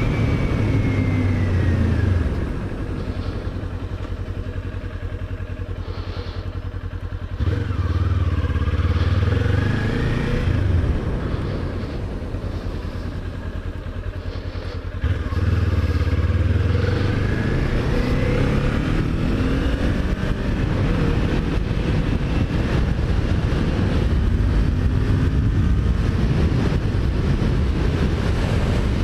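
Kawasaki Ninja 400's parallel-twin engine on the move, rising and falling in pitch as the rider works the throttle. There are two quieter off-throttle stretches, from about two to seven seconds in and from about ten to fifteen seconds in, each ending in a sudden return to full throttle.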